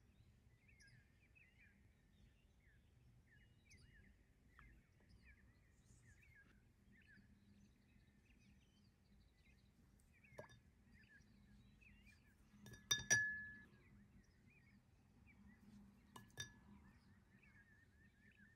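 Near silence with faint chirping throughout, broken by a few sharp clinks: a single one about ten seconds in, a loud pair with a short ring about two thirds of the way through, and a smaller one a few seconds later.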